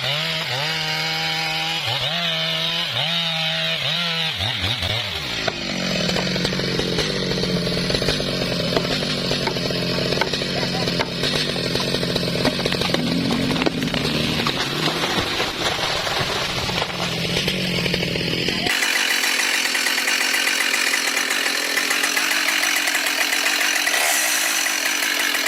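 Two-stroke chainsaw revved up and down several times, then running steadily as it cuts through wood. About 19 seconds in the sound changes abruptly to a thinner, higher buzzing saw with no low end.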